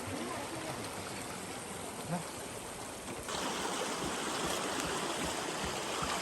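Steady rush of running stream water, turning louder and brighter suddenly a little over three seconds in.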